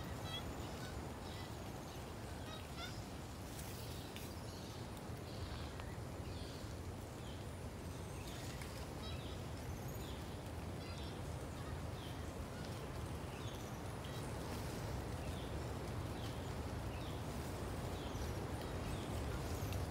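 Short, high, slightly falling bird chirps repeating about once or twice a second over a steady low outdoor background noise.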